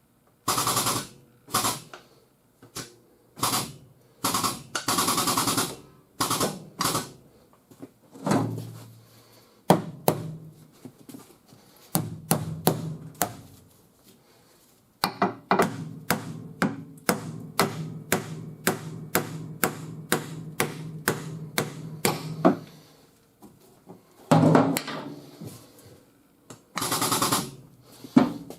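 Body hammer striking the steel quarter panel of a 2019 Chevy Malibu while it is held under pull on a frame machine, knocking down crowned areas to relieve the stress. The blows come in clusters, with a steady run of about three strikes a second in the second half, and a few short bursts of rapid rattling impacts near the start and end.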